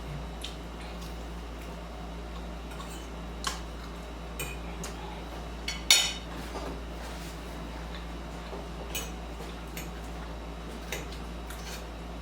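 Eating sounds: a utensil clicking and clinking against a dish at scattered moments, with one louder clatter about six seconds in.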